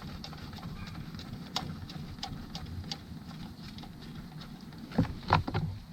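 Scattered light clicks and clinks of hand tools and parts being handled while fitting engine accessories, with a couple of louder clatters about five seconds in, over a low steady hum.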